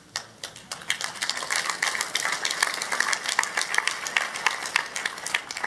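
Congregation applauding: many hands clapping in a dense, irregular patter that builds up over the first second and carries on steadily.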